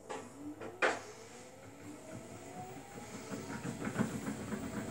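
Samsung Bespoke AI WW11BB704DGW front-loading washing machine starting a service-mode spin: the drum motor's whine rises steadily in pitch as the drum speeds up from a slow turn to about 200 rpm. Two sharp knocks come in the first second, and a quick clatter of the wet load tumbling builds toward the end.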